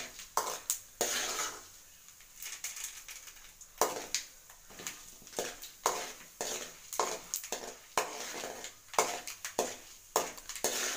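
Steel ladle scraping and clinking against an aluminium kadai in many irregular strokes while stirring chana dal frying in hot oil, with the oil's faint sizzle underneath.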